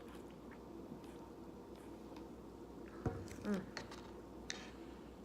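Faint sipping and swallowing of soda through a metal straw, with a soft gulp about three seconds in and a short breathy sound near the end.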